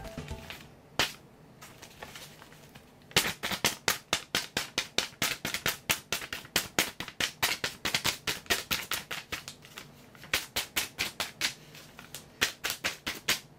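Pencil point jabbing holes through a paper journal page: one sharp poke about a second in, then a fast run of sharp papery pokes, about four a second.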